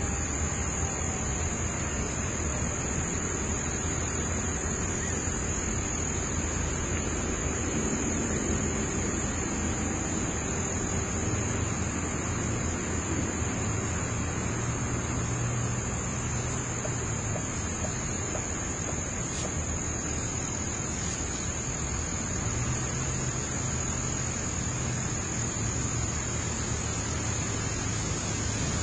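Steady outdoor background: a continuous high-pitched insect trill over a constant hiss and low rumble.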